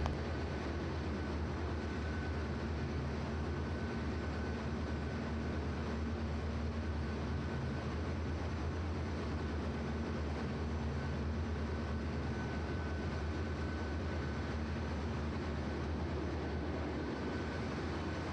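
Steady machinery noise of a ship's engine room: a deep, even hum with a faint high whine running over it.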